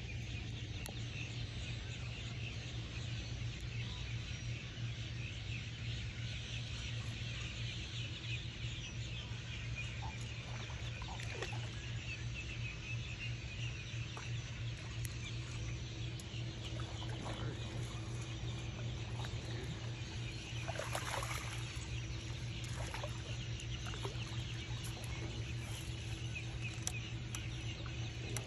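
Pond-side wildlife ambience: many small animal calls going on all the time over a steady low hum, with a cluster of louder calls about three-quarters of the way in.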